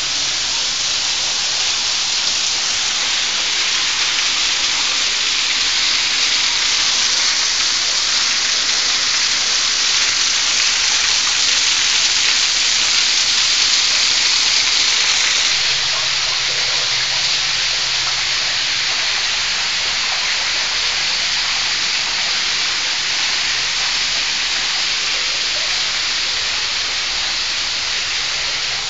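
Waterfall pouring right in front of the microphone, heard from behind the falling curtain of water: a steady, heavy splashing hiss that swells a little toward the middle and eases slightly about halfway through.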